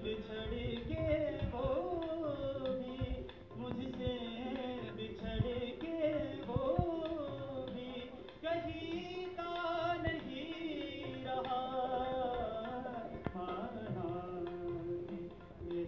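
A ghazal performed live: a voice singing a gliding, ornamented melody with harmonium, and tabla strokes keeping the rhythm.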